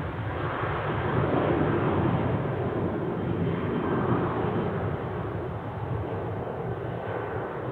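Boeing 737 jet engines at takeoff power as the airliner rolls down the runway: a steady rushing engine noise, slightly louder in the first few seconds.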